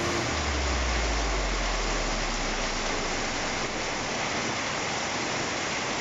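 Torrential hurricane rain pouring down steadily in a dense, even hiss. A low rumble sits under it for the first two seconds or so.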